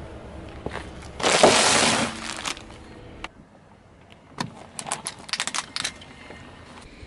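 A car tyre rolls over a bag of corn snacks: the bag bursts with a loud crunching crackle about a second in, lasting under a second. After a brief lull, the tyre rolls onto a row of plastic disposable lighters, which crack and snap in a run of sharp clicks for about a second and a half.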